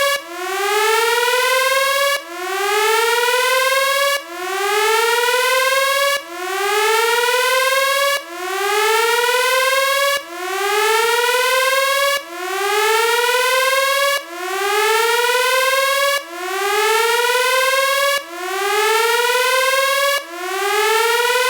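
Electronic whooping alarm siren: a buzzy tone sweeps upward over about two seconds, cuts back to its starting pitch and repeats in an even cycle.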